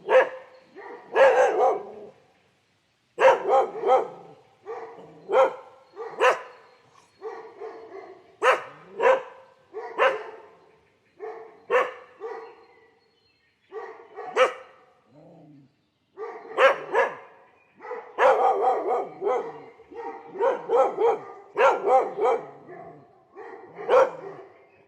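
A dog barking over and over, with single barks and quick runs of barks separated by short pauses.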